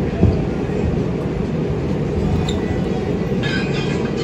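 R142 subway car's running noise heard from inside as it rolls slowly alongside an elevated station platform: a steady rumble, with high-pitched squealing tones coming in near the end.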